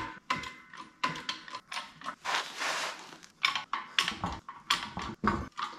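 Hand-pumped hydraulic shop press being worked to press a bushing into an idler arm: irregular metal clicks and knocks, with a brief hiss about two and a half seconds in.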